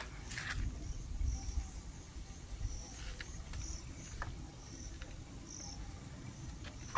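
A cricket chirping: short high chirps repeated about one to two times a second over a low rumble, with a few faint clicks.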